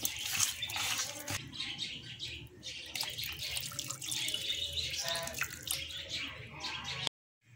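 Wet squelching and splashing as raw mutton pieces are mixed by hand with onions, spices and liquid in a steel vessel. The sound cuts off abruptly near the end.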